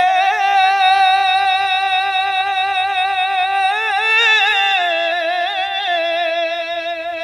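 A man's unaccompanied singing voice holding one long drawn-out note with a wavering vibrato, in the style of Punjabi Sufi kalam. The pitch lifts briefly about four seconds in, settles lower about five seconds in, and the note fades a little near the end.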